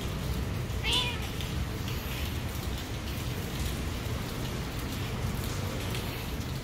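A domestic cat gives one short meow about a second in, over a steady hiss of rain.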